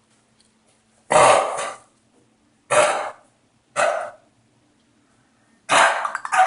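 Dog coughing in four hacking bursts with short pauses between, as if trying to bring something up.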